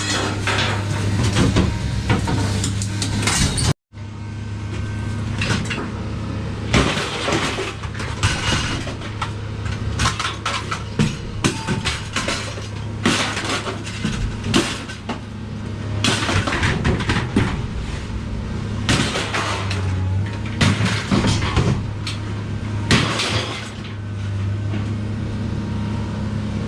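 Scrap clattering and clanking in many irregular knocks and crashes, over a steady low engine hum.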